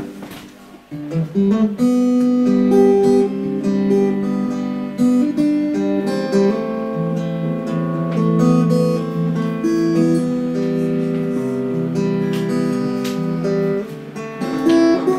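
Snap Dragon Mini Traxe Sky folding travel guitar played through an AER acoustic amplifier: a tune of picked single notes and strummed chords, starting about a second in.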